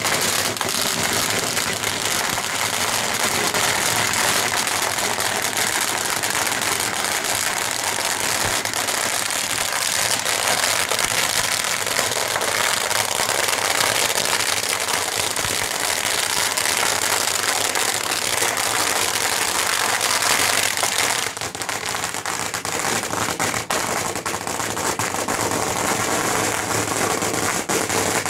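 Strings of firecrackers going off in a dense, continuous crackle of rapid bangs. From about three-quarters of the way through, the bangs thin into more separate cracks.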